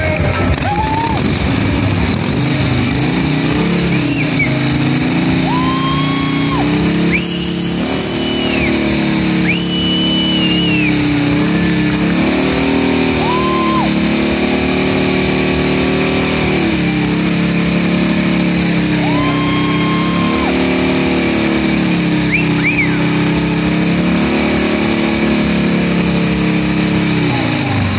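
Custom chopper motorcycle doing a burnout: the engine is held at high revs, dipping and climbing again several times, while the rear tyre spins on the spot.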